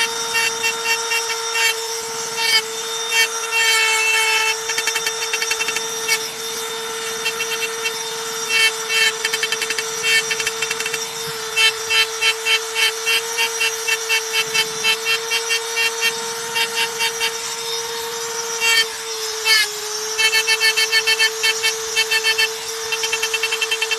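Handheld electric rotary engraving tool running with a steady high motor whine, its burr ticking and scratching rapidly as it cuts lines into the surface.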